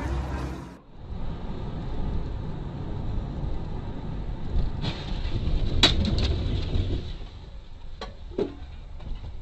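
Car driving, heard through a dashcam: steady engine and road rumble, with one sharp knock about six seconds in and two shorter knocks near the end.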